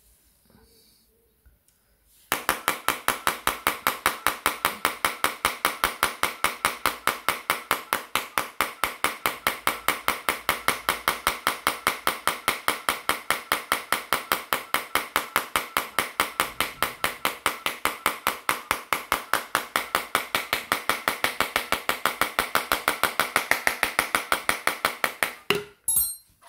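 A long, even run of sharp taps, about four a second and all equally loud, starting about two seconds in and stopping abruptly near the end.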